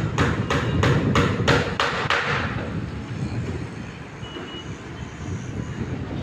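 A rapid series of about three sharp strikes a second for the first two seconds, then stopping, over a steady low rumble of heavy machinery.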